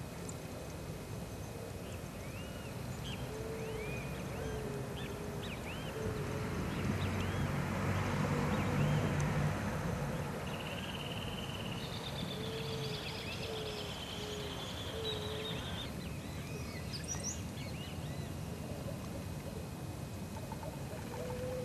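Outdoor ambience of several birds calling: short chirps, a run of short low repeated notes and a high held trill, over a steady background hum. A vehicle swells past, loudest about eight to nine seconds in.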